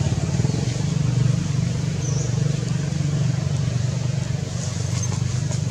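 A motor vehicle engine running steadily, a low, even hum.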